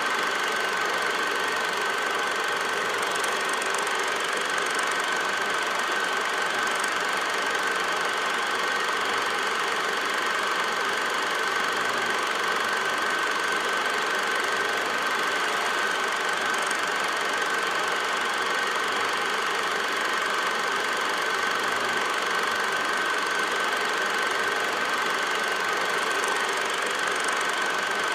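8mm film projector running: an even mechanical whir with a constant high whine, unchanging throughout.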